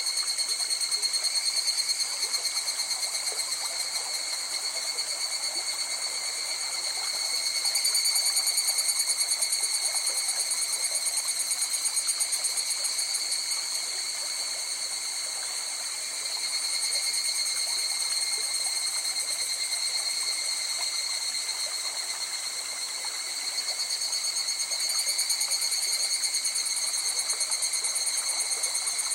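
A continuous high, finely pulsing trill from a chorus of calling animals, swelling slightly in loudness at times, over the faint rush of a river.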